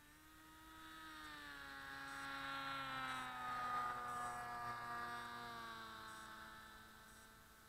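Electric RC plane's motor and propeller passing by: the sound grows to a peak about four seconds in and fades away, its pitch sliding steadily down as it goes.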